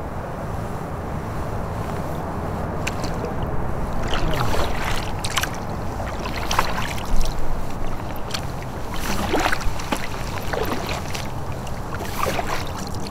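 Water lapping and splashing against a kayak hull, with wind on the microphone and several sharper splashy bursts in the second half.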